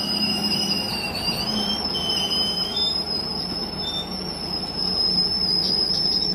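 Recovery truck's crane winch running with its engine going, giving a steady high-pitched whine and a second, lower squealing tone that wavers in pitch over a low mechanical rumble.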